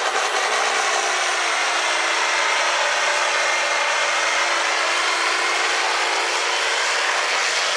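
Ford 8630 Pro Stock pulling tractor's turbocharged six-cylinder diesel running flat out under full load as it drags the weight sled. A loud, steady, harsh engine noise.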